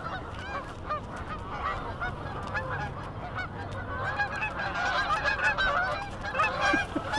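A flock of Canada geese honking, many calls overlapping. The honking grows denser and louder about four seconds in.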